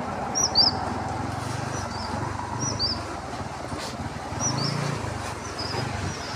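A bird repeating a high two-note chirp every second or so, over the low steady hum of a motorcycle engine running at low speed.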